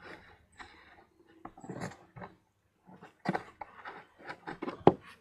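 A rock crushing and grinding flower pieces against a piece of bark: irregular crunching and scraping with short knocks, and one sharp, loud knock near the end.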